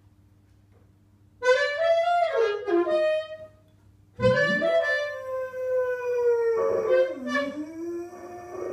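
A dog howling like a wolf, joining in with a saxophone. There are two long, wavering howls: the first starts about a second and a half in and slides up and then down, and after a short pause the second starts and slowly falls in pitch.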